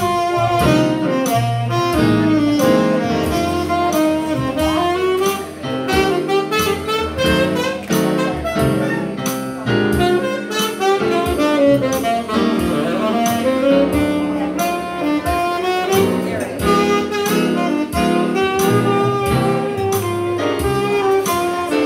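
Live jazz-blues band playing an instrumental break: a saxophone solo with a bending, gliding melody over keyboard chords and upright bass.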